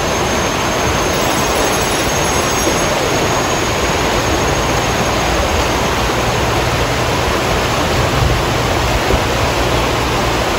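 Shallow river rapids rushing over rocks: a steady, even wash of water noise with no break.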